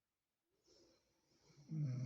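Snoring: silence, then a faint breath about half a second in that builds into a loud, low, pitched snore near the end.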